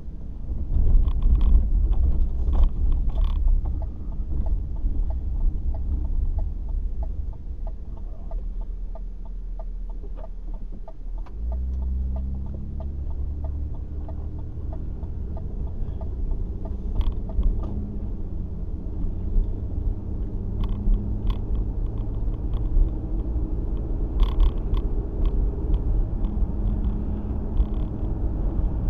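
Car on the move, a steady low rumble of engine and road noise inside the cabin, with scattered knocks and rattles. A run of quick, regular ticks comes in the middle, and about twelve seconds in the engine note changes and then slowly rises.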